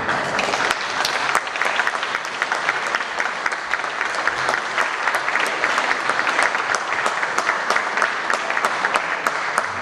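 Audience applauding, with continuous clapping.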